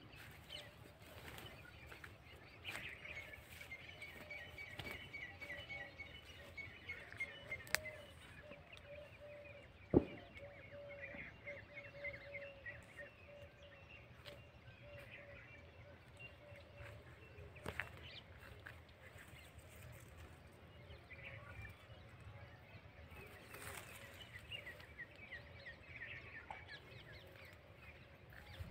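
Birds chirping in rapid chattering series against faint outdoor background noise, with a few sharp clicks; the loudest click comes about ten seconds in.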